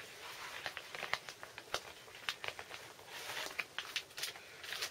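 Plastic outer sleeves of LP records crinkling and rustling as record sleeves are slid along and pulled from a packed shelf, with a string of small clicks and scuffs.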